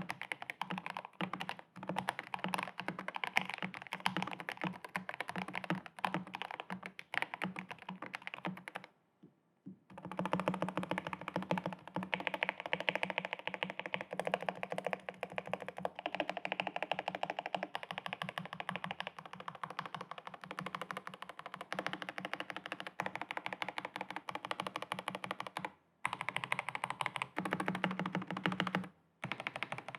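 Typing on an Epomaker GK96S mechanical keyboard with lubed Gateron Yellow switches and GK2 silicone keycaps: a fast, continuous run of keystrokes that stops briefly three times, once about nine seconds in and twice near the end.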